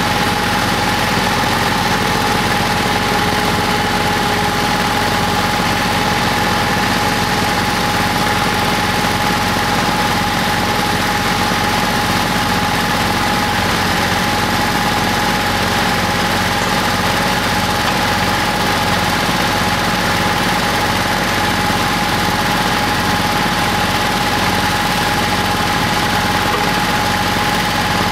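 Kubota L3400 compact tractor's engine idling steadily, with a constant whine above the running note.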